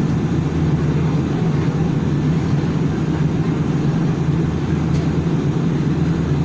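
Steady low hum inside a Nankai Koya Line electric train standing at a station, its onboard equipment running while the car is stopped.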